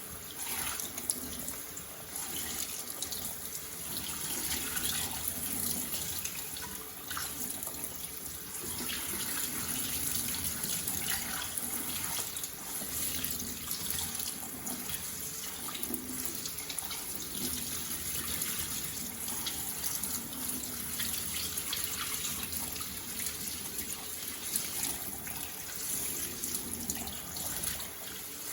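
Kitchen tap running steadily over soaked oats as they are rinsed, the water splashing with a slightly uneven hiss.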